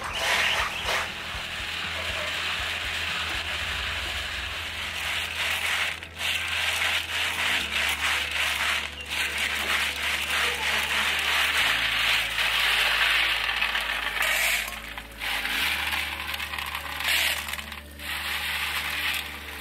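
Many small snail shells rattling and clinking together as they are stirred in a metal bowl: a continuous crackling rattle with a few brief breaks.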